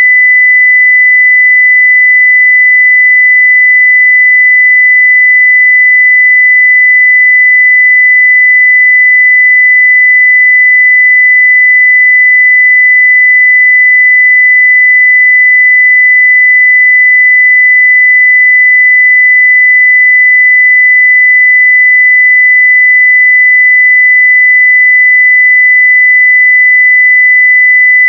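Continuous 2 kHz sine-wave test tone at full scale (0 dB), one pure steady pitch.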